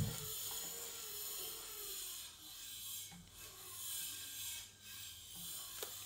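Faint rubbing and soft taps of fingers on a Sony VAIO laptop's touchpad and keyboard, over a steady background hiss, with a soft knock at the start and a short click near the end.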